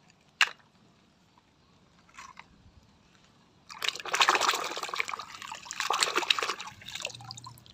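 A hand swishing and scrubbing a small plastic toy truck underwater in a plastic basin of muddy water: vigorous splashing and sloshing for about three seconds, starting a little past halfway. A single sharp click comes about half a second in.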